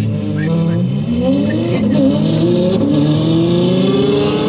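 Two Ferraris accelerating hard side by side, heard from inside one car's cabin. In the first two seconds the engine notes climb in short steps, dropping back at each gear change, and then rise in one long unbroken climb.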